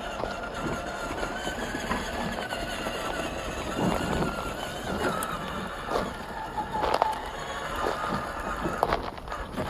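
Electric motor and gearbox of a 1:10 scale MST CMX RC crawler whining as it drives, the pitch wavering with the throttle, with a few sharp knocks of the tyres and chassis on rocks.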